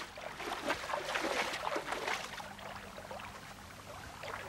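Footsteps splashing and sloshing through ankle-deep water: a run of irregular splashes that thins out after about two and a half seconds.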